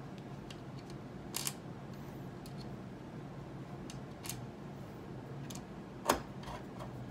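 Small clicks and taps of binding screws and a hand screwdriver being handled and set into a telemark binding toe piece, with one sharper click about six seconds in. A low steady hum runs underneath.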